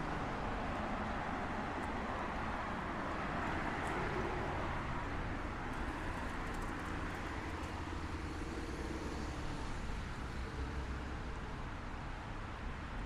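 City street ambience: steady road traffic noise with a low rumble, swelling as a vehicle passes in the first few seconds and easing off after.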